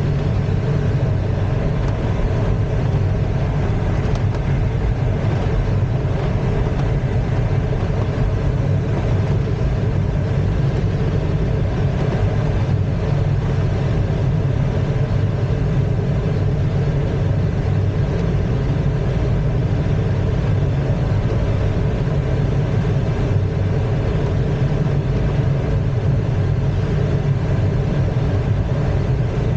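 Steady rush of air over a glider's cockpit during an aerotow climb, with the steady drone of the tow plane's engine running underneath. The sound holds the same level throughout.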